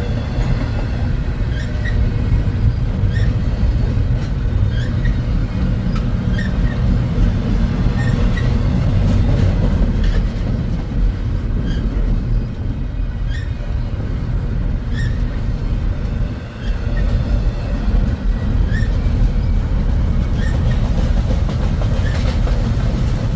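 Freight train cars rolling past with a steady, heavy low rumble, dipping briefly about two-thirds of the way through.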